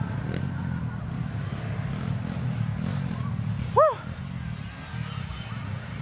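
A steady low rumble, like an engine running nearby. Just before four seconds in, a single short call with a clear pitch rises and falls; it is the loudest sound.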